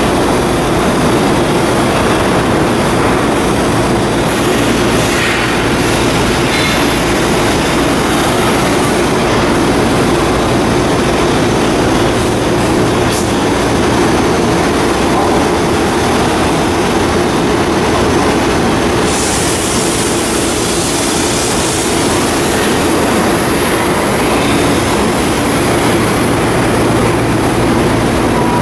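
Loud, steady mechanical noise with a strong low hum underneath. A brighter hiss joins about two-thirds of the way in.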